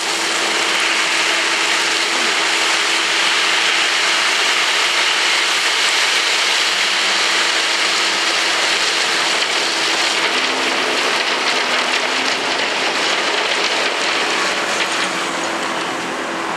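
Gravel pouring from a raised tipper truck bed onto a heap: a loud, steady rushing hiss like heavy rain, over a steady engine hum. The flow thins and the hiss fades near the end as the bed empties.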